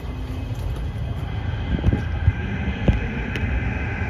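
CT251 metro train pulling out: a steady low rumble of wheels on rail with a few knocks around the middle, and a motor whine of several steady tones coming in about halfway.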